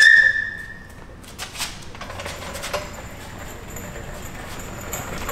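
A loud, steady high-pitched squeak lasting about a second, followed by a few light knocks and clatter.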